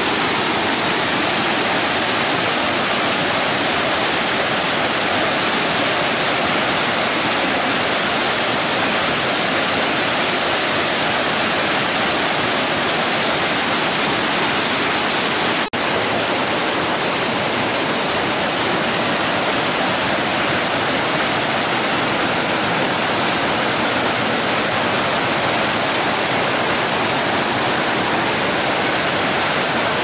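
A small waterfall and rapids, white water rushing steadily over and between boulders into a pool. The sound drops out for an instant about halfway through.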